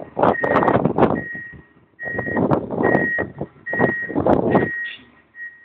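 Snow groomer's reversing alarm beeping steadily, a high single-pitch beep a little more than once a second, under loud surges of rushing noise.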